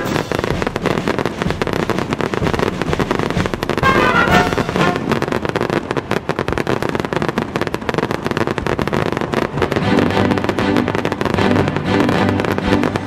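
Fireworks finale: many shells bursting at once in rapid, overlapping bangs and crackling, with music playing along.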